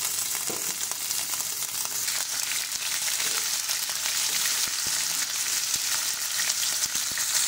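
Pre-boiled beef chunks shallow-frying in oil in a pan, sizzling steadily, with a few clicks as a slotted spatula turns them.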